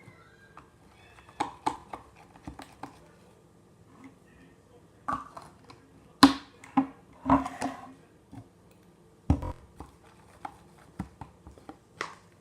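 Irregular short clicks and pops from slime being handled, squeezed and poked, about ten in all with gaps between them.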